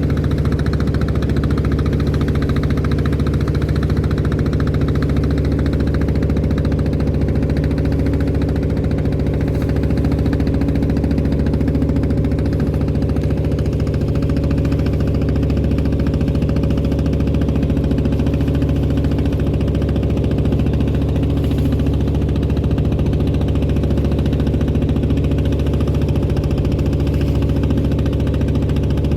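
Klotok boat's inboard diesel engine running steadily at one constant speed, an even engine drone with no change in pitch.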